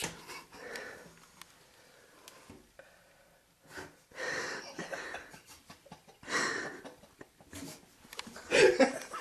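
A person's breath in a few short breathy bursts, about four, six and a half and eight and a half seconds in.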